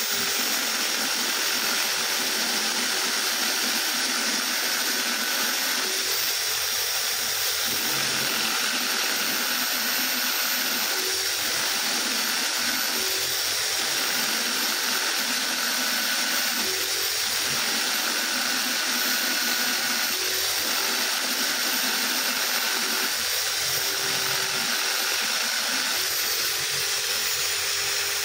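Corded electric drill running steadily, spinning a small abrasive wheel against which a motorcycle camshaft lobe is held by hand and ground down to reshape its profile. A continuous high grinding hiss, its lower tone changing every few seconds as the lobe is worked against the wheel.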